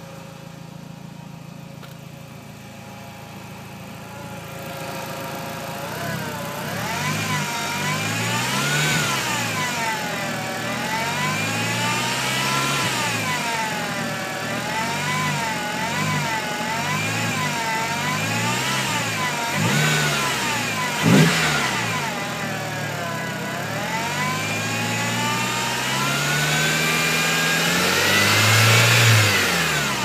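A VW Polo GTI's 1.8T turbo four-cylinder engine idles with a steady whine. From about six seconds in it is revved up and down over and over, and the whine rises and falls in pitch with the revs. About two-thirds of the way through there is one short sharp pop. The whine's cause is unknown to the owner, whose power steering fluid is already checked and topped up.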